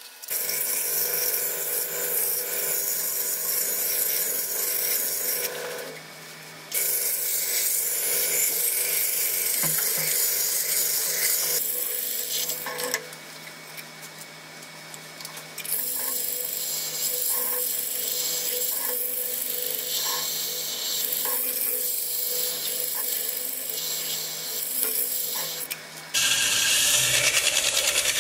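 Wood lathe running with a steady hum while a hollowing tool cuts inside the spinning wooden bowl, a continuous scraping hiss. The cutting stops for a few seconds twice and then resumes, and it grows louder near the end.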